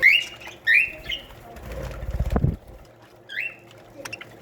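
Budgerigars in an aviary giving short rising chirps, four in all, the first two loudest. A low rumble a little past halfway.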